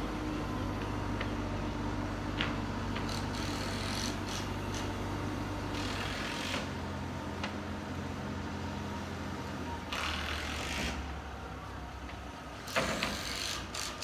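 Construction site sound: an engine runs steadily with a low hum, and scattered sharp clicks and knocks come through it, along with three short bursts of hiss.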